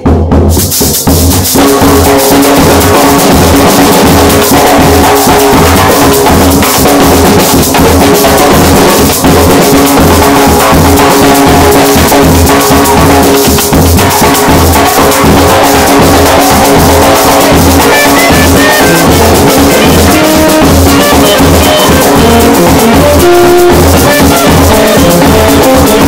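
Loud band music with a steady beat: a bass drum and a snare drum with a mounted cowbell, under sustained melody notes.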